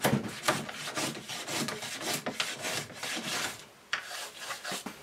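A hand plane working a thin beech board in quick, short strokes, about three rasping swishes a second. The strokes stop about three and a half seconds in, and a few light taps follow.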